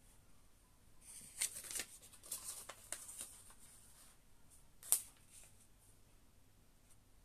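A paper instruction leaflet rustling and crinkling as it is handled and unfolded, in a run of crisp rustles followed by one sharper crackle about five seconds in.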